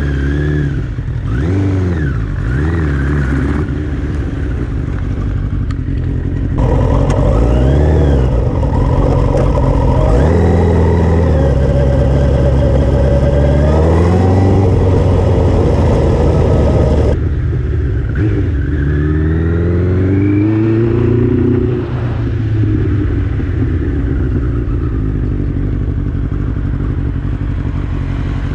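Suzuki GSX-R motorcycle's inline-four engine on the road, revving up and dropping back again and again as it pulls through the gears and eases off. A louder stretch in the middle carries wind rush over the engine note.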